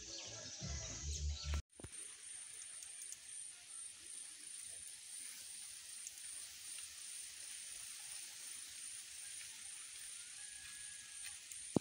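Music with a heavy bass cuts off abruptly just under two seconds in. It gives way to faint outdoor ambience in which an insect chirps in a steady high-pitched pulse, about two or three chirps a second.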